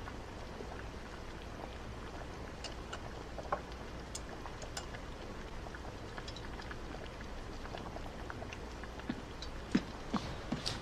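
Quiet steady background hiss with scattered faint clicks and ticks.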